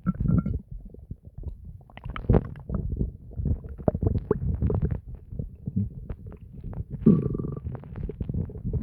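Human stomach gurgling and rumbling: a continuous run of low, irregular gurgles and crackles, with a brief higher whistling tone about seven seconds in.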